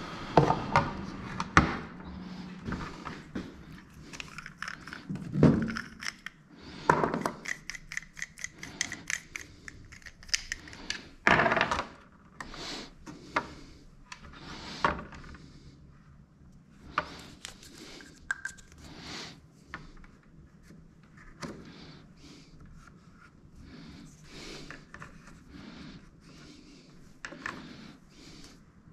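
Irregular knocks, thunks and clicks of parts and tools being handled and fitted together, with a quick run of clicks and rattles a few seconds in.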